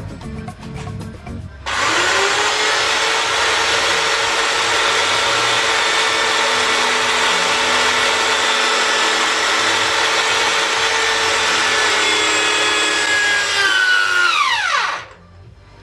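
Electric drill running steadily at full speed while drilling the hole for the throttle, starting abruptly a couple of seconds in. Near the end it spins down with a falling whine as the motor is let go.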